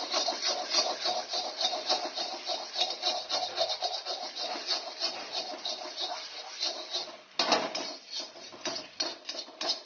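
Metal spatula scraping and tapping rapidly against a pan while eggs are stirred and fried, about four strokes a second, with a few heavier strikes near the end.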